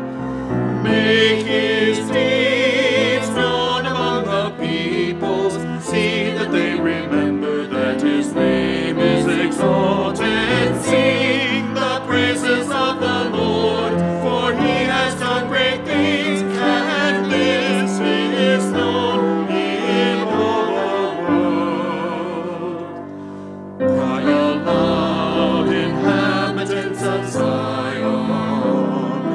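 Church choir singing a sacred piece with vibrato, phrase after phrase, with a brief lull about three-quarters of the way through before the voices come back in.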